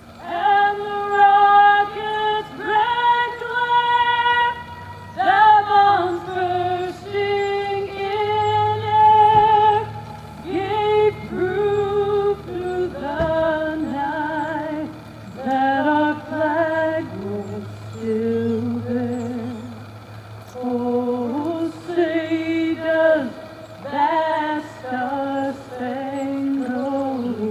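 A woman singing solo in long, held notes with vibrato, phrase after phrase, over a steady low hum.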